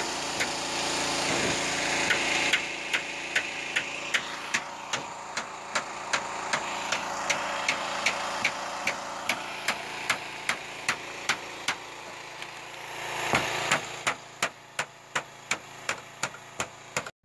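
A machine running steadily, with a regular ticking about three times a second. It cuts off abruptly near the end.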